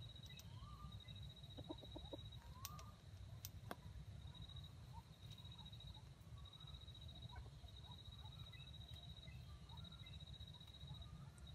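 Quiet outdoor ambience: a few soft clucks from a red junglefowl rooster about two seconds in, over a steady high trill broken by short gaps and faint bird chirps.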